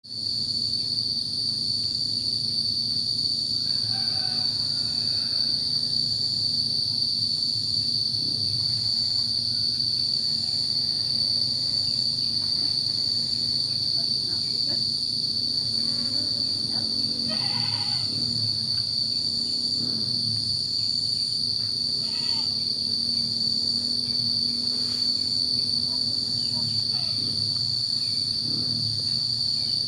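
Insects, crickets or cicadas, keeping up a continuous high-pitched trill. Beneath it there is a low background hum and a few faint, brief calls or voices.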